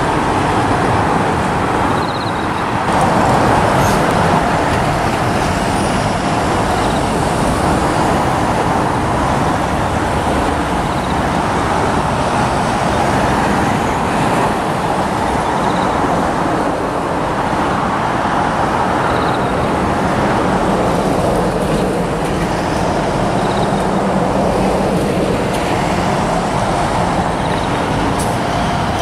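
Steady road-traffic noise at a Japanese railway level crossing, with the crossing's electronic warning bell ringing as the barriers come down for an approaching train.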